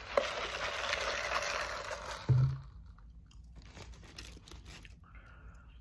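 Crisp crinkling and rustling of a paper food wrapper being handled for about two seconds, ending in a single dull thump on the table; fainter handling sounds follow.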